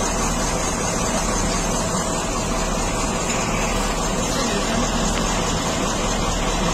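Heavy truck engine idling steadily, a low even rumble under a constant hiss.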